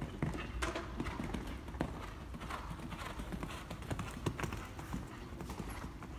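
Show-jumping horse cantering on the sand footing of an arena: a quick, uneven run of hoofbeats.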